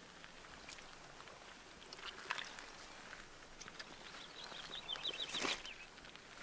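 Crunching and rustling in dry leaves or brush, loudest about five seconds in, with a short rapid run of high chirping notes just before and alongside it.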